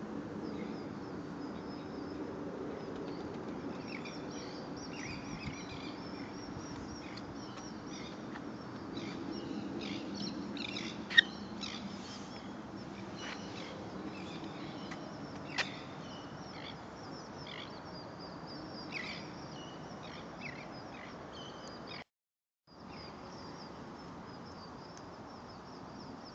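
Small birds chirping over and over above a steady low background noise, with two sharp clicks about eleven and fifteen seconds in. The sound cuts out for under a second near the end.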